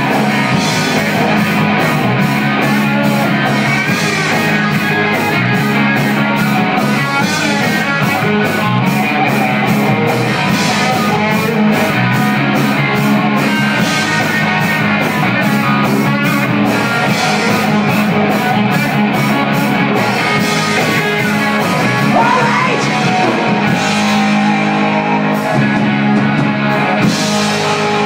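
Live rock band playing with electric guitars, bass and drum kit, a steady cymbal beat driving it; the cymbals drop back for a few seconds near the end. Heard from within the audience in a small club.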